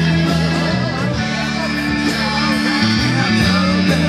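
Live amplified rock band playing: electric guitar and bass over a steady drum beat.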